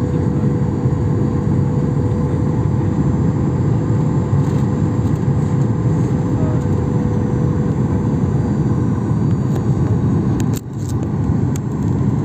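Steady roar of jet airliner cabin noise, from the engines and the airflow, heard inside the cabin as the plane descends toward landing. A faint steady tone sits above it for the first half. Near the end the noise dips briefly and there are a few light clicks.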